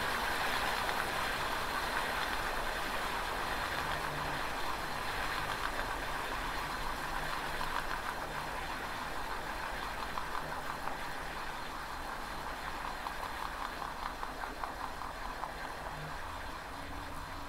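Shimano Alfine 8 (SG-S501) eight-speed planetary hub gear whirring steadily in eighth gear as the wheel turns, with a fast, fine ticking through the middle and a gradual fade. The hub has run about 500 km on its original factory grease, never serviced.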